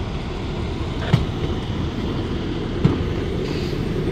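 Hi-rail boom truck running along the rails and towing a rail cart loaded with rail: a steady low rumble, with two sharp clacks, about a second in and near three seconds.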